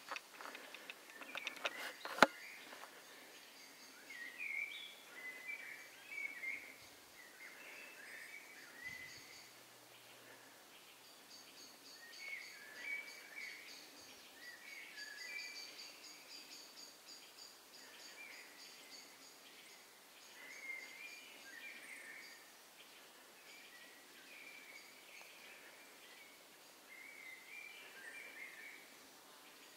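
Quiet woodland ambience: birds singing in short scattered phrases, with a rapid, high ticking trill through the middle. A run of clicks near the start ends in one sharp click about two seconds in, the loudest sound.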